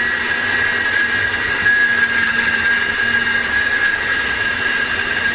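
Electric blender running steadily with a high whine, blending onion, ginger and garlic with a little water into a paste.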